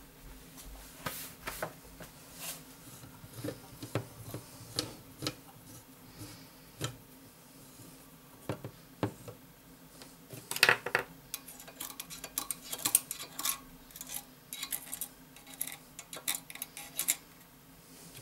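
Small metallic clicks, taps and light scraping as hand tools work the valve keepers loose from a compressed valve spring retainer on an LS400 aluminium cylinder head. The clicks come in scattered bunches, busier and louder from about halfway through.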